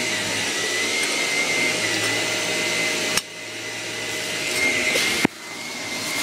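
Vacuum cleaner running steadily with a thin high whine. Twice the sound drops away suddenly with a click and swells back up.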